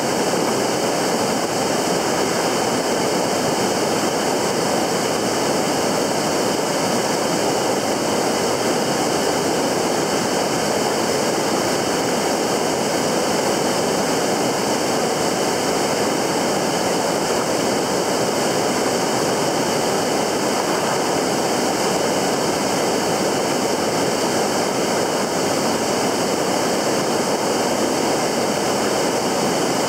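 Steady rushing of fast-flowing stream water, an even noise with no breaks or changes.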